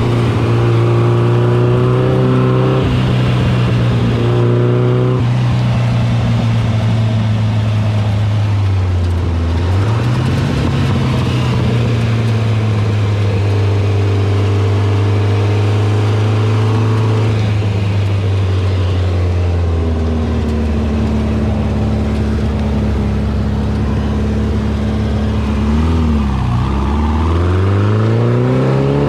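Racing dune buggy engine running at mostly steady revs, the pitch dipping and picking up again about ten seconds in, easing off later, then falling and climbing sharply near the end as it revs up.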